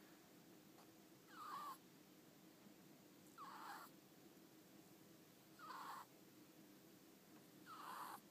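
Sleeping ferret snoring faintly: four short snores, about one every two seconds.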